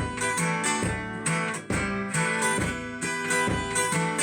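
Acoustic guitar strummed in a steady rhythm of chords, about two strokes a second: the instrumental intro of a song just after its count-in.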